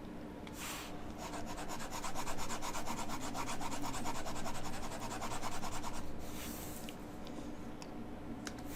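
Rapid back-and-forth rubbing strokes, about ten a second, of a hand-held pointer, a stylus or mouse, being scrubbed over its pad while colouring in a shadow. It runs for about five seconds, then eases off into a few lighter strokes.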